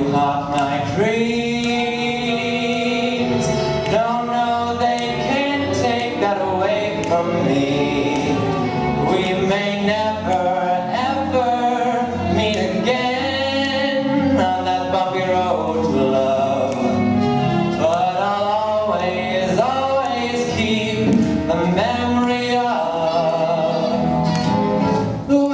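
A young man singing a song through a handheld microphone in long, held notes, with instrumental backing underneath.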